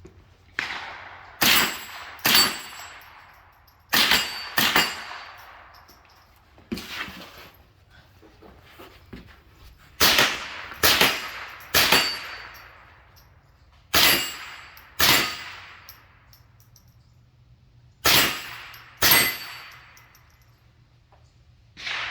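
Suppressed .22 LR Smith & Wesson M&P 15-22 rifle firing a slow string of about a dozen shots, mostly in quick pairs or threes with pauses between, each crack ringing off with a metallic clang that fits hits on a steel plate.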